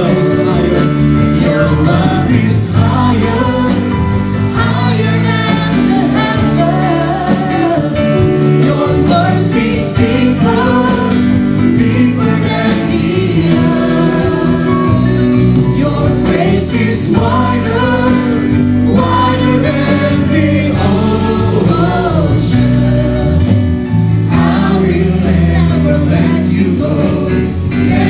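Church worship team singing an English praise song through microphones, male and female voices together over live band accompaniment with sustained keyboard chords and bass.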